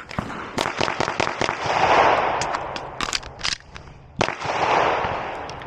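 Glock 47 9mm pistol with a Radian Ramjet compensator firing a fast string of shots, then a pause with the clatter of a reload, then a single shot. A rushing noise swells up twice between the shots.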